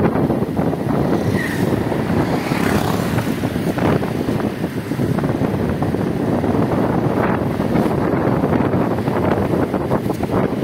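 Wind buffeting the microphone of a motorcycle on the move, over its engine and road noise: a steady, dense rumble.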